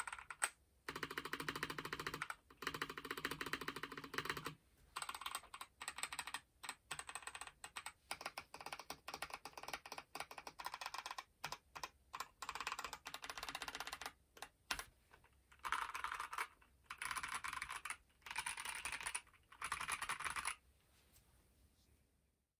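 Typing on a stock KBD67 Lite mechanical keyboard with stock Boba U4T 62 g tactile switches: runs of rapid keystrokes separated by short pauses, stopping about two seconds before the end.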